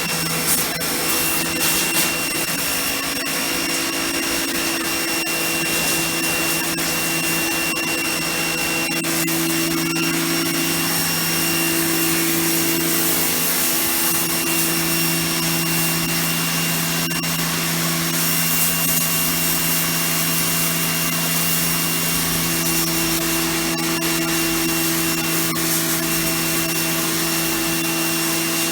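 Titan TTB66PRW electric pressure washer running steadily under load, its motor and pump giving a steady drone with a thin high whine over the hiss of the water jet.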